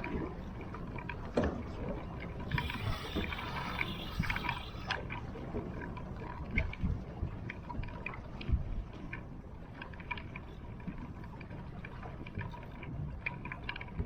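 Water lapping and gurgling against a small fishing boat's hull, with scattered knocks and clicks on the boat. A burst of hiss starts about two and a half seconds in and lasts a couple of seconds.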